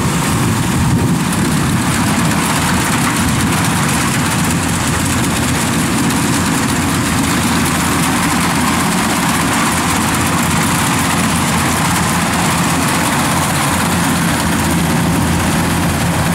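Kubota rice combine harvester running steadily as it cuts and threshes standing rice: an even engine drone with a steady hum, unchanging throughout.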